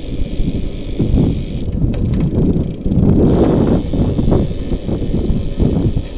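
Wind buffeting the microphone of a bicycle-mounted action camera while riding, a low gusty rumble that swells about three seconds in.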